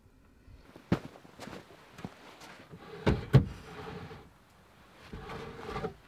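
Wooden-framed racks being slid in and out along the runners of a wooden smokehouse: a few sharp wood-on-wood knocks, the loudest pair about three seconds in, and two stretches of scraping slide.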